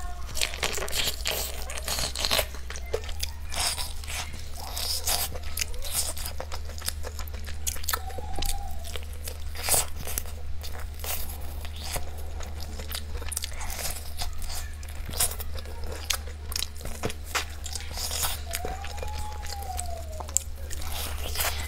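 Close-miked crunching and chewing of crispy battered fried chicken: the crackling coating breaks in irregular crunches, bite after bite, with wet mouth sounds between.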